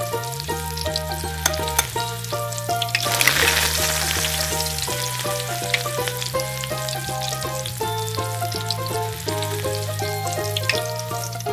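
Hot food sizzling and crackling in a miniature clay pot as a fork stirs it, with light clinks of the fork. The sizzle swells louder about three seconds in. Background music with a melody and steady bass plays throughout.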